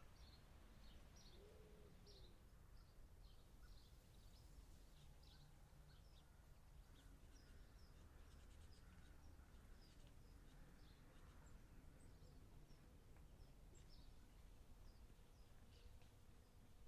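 Faint birdsong: many short, high chirps over a low, steady background rumble.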